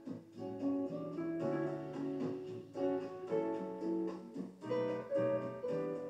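Instrumental music: an acoustic guitar playing a run of plucked notes.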